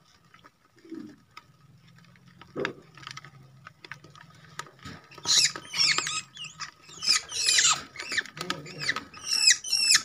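Young long-tailed shrike (cendet) fledgling calling in rapid squeaky chirps, each falling steeply in pitch, about three a second, starting about halfway through.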